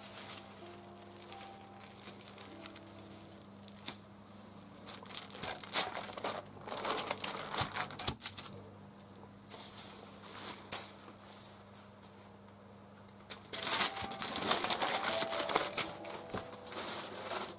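Thin printing paper crinkling and rustling as it is handled over an inked wood-engraving block, in two spells, the second near the end.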